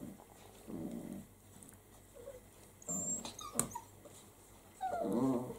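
Six-week-old Italian greyhound puppies growling and whimpering as they play-fight, in three short bouts, the loudest near the end.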